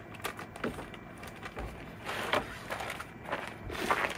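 Footsteps stepping down from a van and crunching across gravel, with irregular clicks and scrapes that grow louder about two seconds in and near the end.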